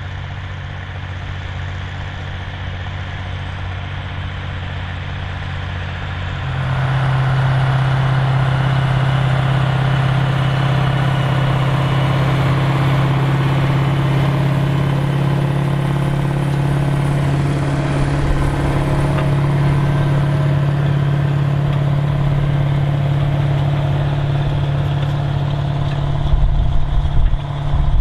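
Large articulated farm tractor's diesel engine running steadily, then growing louder and higher about six seconds in and holding there, as under more throttle or load. A few low thumps near the end.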